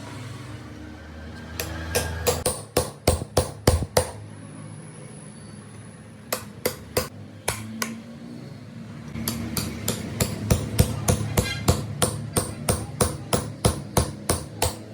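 Hammer blows struck in quick runs, about three to four a second, with short pauses between the runs.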